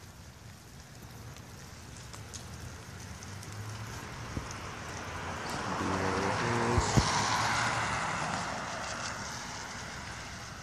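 A car passing on the wet street: tyre hiss swells slowly to a peak about seven seconds in, then fades away. There is a sharp tap near the peak.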